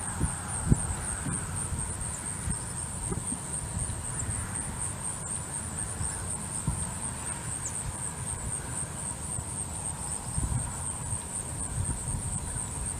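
Steady high-pitched insect chirring, with wind rumbling on the microphone.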